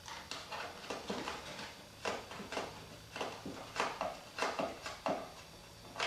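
A screw fitted with a rubber grommet being turned in by hand through a plastic gauge bracket, giving an irregular run of short creaks and clicks, about three a second.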